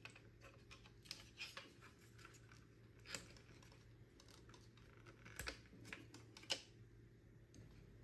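Faint clicks and scrapes of a 9-volt battery being pried out of a wireless PIR motion sensor's plastic case and pulled off its snap connector. The sharpest clicks come about three, five and a half and six and a half seconds in.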